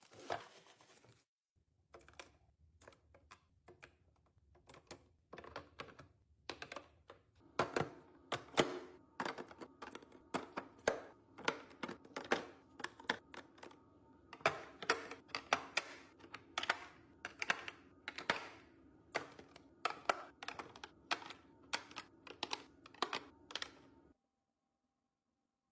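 Kitchen items being handled and set down while restocking and organizing: a quick, irregular run of light clicks, taps and knocks, like plastic and glass containers. It stops suddenly near the end.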